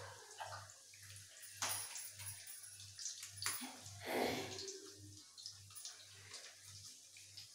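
Urad dal fritters (bade) frying in hot oil in a kadai: a steady sizzle, with a few louder swells of crackling.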